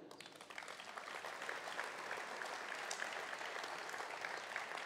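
Crowd applauding: a steady patter of many hands clapping that swells within the first second and then holds.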